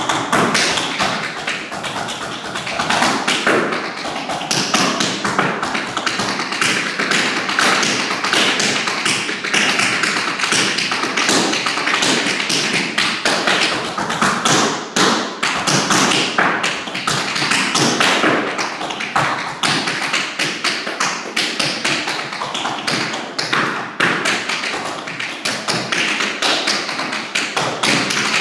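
Tap shoes striking a hardwood floor in a solo improvised tap dance: a rapid, unbroken stream of taps with heavier thuds mixed in.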